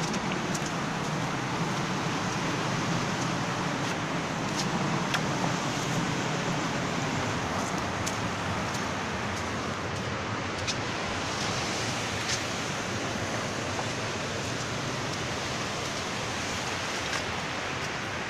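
Steady rushing roar of the Torsa river in flood, running above danger level after non-stop rain, with a few light clicks over it.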